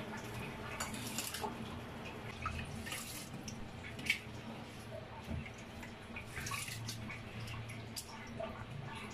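Raw rice being washed by hand in a shallow bowl of water: fingers swishing and rubbing the grains, with scattered small splashes and drips.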